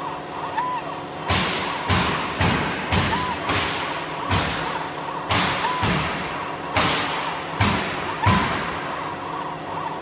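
A run of sharp knocks, about two a second at uneven spacing, starting about a second in. A steady hum runs underneath, with a short high beep every two to three seconds.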